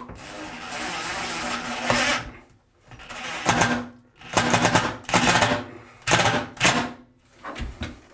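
DeWalt cordless driver driving a screw into a shower door's metal trim. It runs steadily for about two seconds, then in five short bursts as the screw is eased home.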